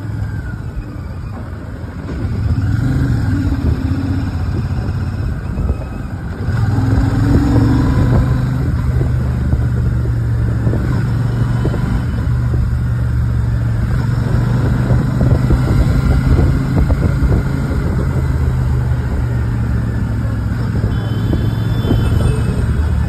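Royal Enfield Shotgun 650's parallel-twin engine and exhaust running under way, getting louder about two and a half seconds in and again about six seconds in, then holding steady.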